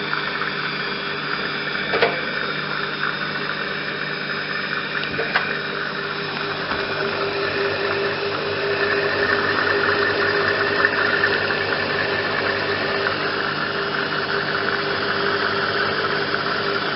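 Washing machine drum spinning at speed on the spin cycle, a steady whirring hum from the belt-driven drum and motor, with two sharp knocks about two and five seconds in.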